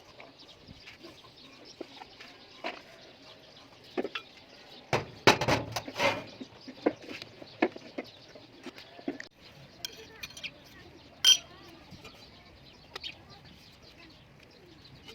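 Irregular knocks and metallic clinks of hard objects being handled, with a dense cluster of knocks about five seconds in and a single sharp clink about eleven seconds in.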